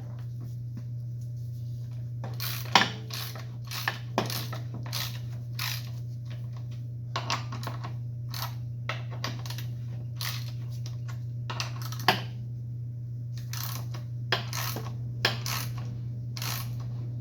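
Irregular metallic clicks and clinks of bolts and hand tools against the chop saw's metal parts as it is bolted back together, a dozen or so separate taps with a louder knock now and then.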